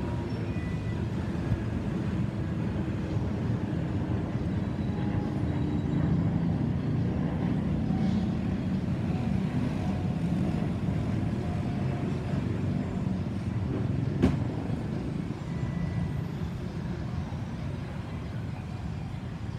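Low rumble of a climbing Airbus A350-900's Rolls-Royce Trent XWB jet engines passing overhead, swelling about six to ten seconds in and fading toward the end. One sharp click about fourteen seconds in.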